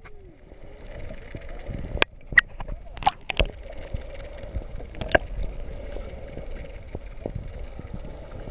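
Underwater sound picked up through a GoPro's waterproof housing: muffled gurgling water and a steady low hum, broken by sharp knocks, several between about two and three and a half seconds in and one more near five seconds.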